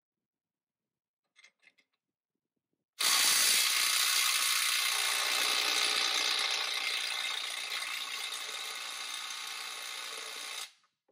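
A few faint clicks as the impact socket is seated on the nut, then the DeWalt ATOMIC DCF923 3/8-inch brushless 20V impact wrench hammering continuously for about eight seconds in speed mode 2, slowly getting quieter before it stops. It is straining to break loose a 33 mm nut torqued to 450 ft-lb, near the top of its range, and it has trouble busting it free.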